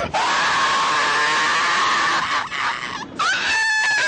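A man screaming on a slingshot ride: one long, rough scream, a short break for breath, then a high, steady scream that starts near the end.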